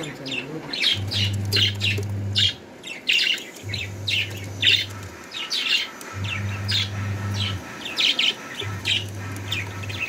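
Budgerigar chicks chirping in quick, busy, high-pitched bursts. Underneath, a low hum comes on and cuts off again four times, each time for about a second and a half.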